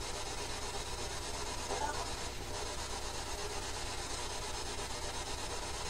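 Steady hiss and low electrical hum of room tone, with one faint brief sound about two seconds in.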